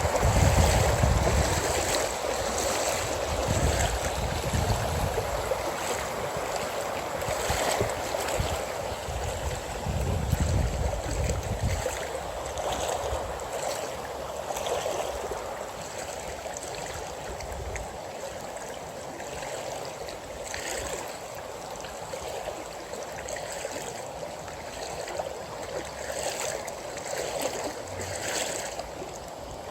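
Steady rushing of flowing water, with low rumbling gusts during the first twelve seconds or so.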